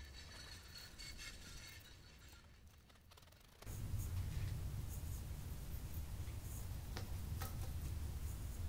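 Fingernail and a small scraper picking at a decal on a glass window: faint scratches and a couple of light clicks over a low steady hum.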